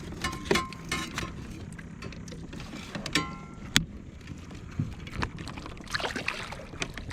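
Kayak sounds: scattered knocks and clicks of gear against the hull, with a couple of short squeaks, one at the start and one about three seconds in.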